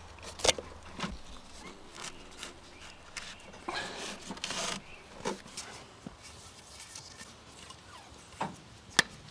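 Hands handling rope and a wooden box frame: scattered sharp knocks and clicks, the loudest about half a second in and again near the end, with a stretch of rustling around the middle.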